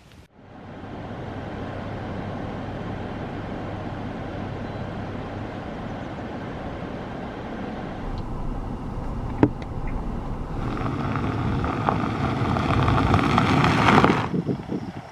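A vehicle driving, with steady engine and road noise that grows louder over the last several seconds and cuts off suddenly near the end. A single sharp knock sounds about nine seconds in.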